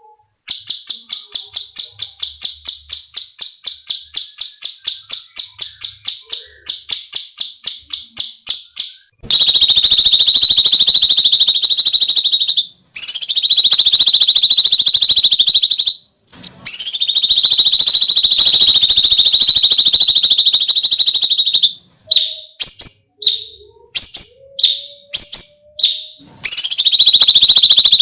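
Cucak cungkok calling: a fast run of high repeated chirps, about five a second, then long harsh screeching calls broken by short pauses, with a few short falling notes shortly before the last long call.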